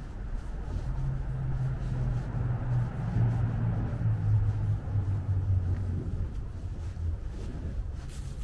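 A motor vehicle's engine passing close by: a low hum that grows louder through the middle and drops in pitch as it goes, over the steady low rumble of street traffic.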